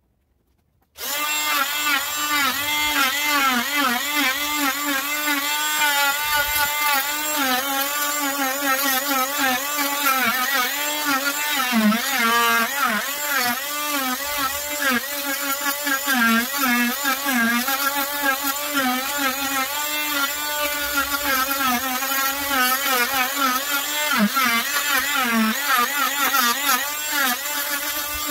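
Wesco oscillating multi-tool starting about a second in and running, its blade carving into a wooden blank held in a vise: a steady high-pitched buzz whose pitch wavers constantly as the blade bites the wood.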